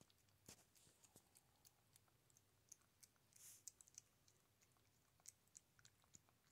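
Faint, irregular wet clicks and smacks of a domestic cat chewing and licking wet food from a small bowl, with one brief soft rustle about halfway through.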